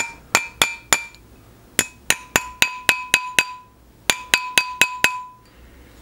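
Rawhide mallet striking a silver ring on a steel ring mandrel, about sixteen sharp taps in three quick runs, each leaving a short metallic ring from the mandrel. The band is being compressed down onto the mandrel's flat section to form the ring's flat back.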